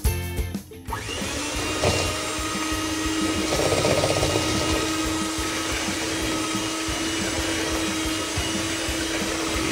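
Background music ends about a second in, and a handheld electric mixer starts up and runs steadily with a constant hum, its beaters creaming margarine and sugar in a stainless steel bowl.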